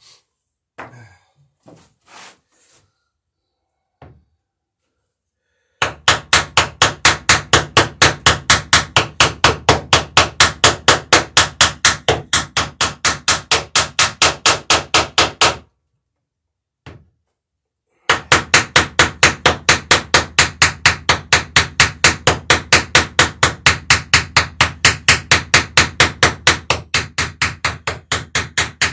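Small hammer peening over the end of a copper boat rivet on a wooden dory plank, forming the rivet head: quick, even, light taps about four a second in two long runs with a short pause between, after a few soft knocks.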